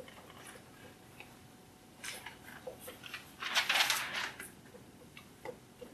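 Dry-erase marker writing on a whiteboard: light taps and short strokes, with a longer, louder scratchy stroke about three and a half seconds in.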